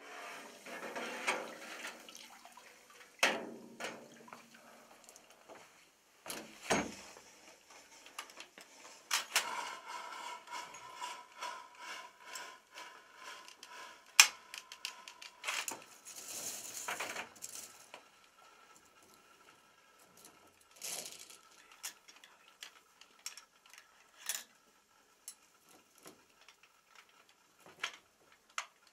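Metallic clinking and rattling of a linked ammunition belt of 7.62x54R cartridges being handled and dragged across a table, with scattered sharp clicks.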